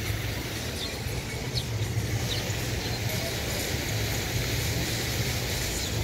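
Steady rushing of a large outdoor water fountain with a constant low hum underneath, and a few short high bird chirps from a sparrow scattered through it.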